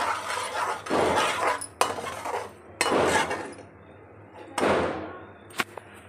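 Steel spatula scraping and stirring a grainy flour mixture with chopped almonds as it roasts in a steel kadhai. There is a sweep about once a second, and a sharp metallic clink near the end.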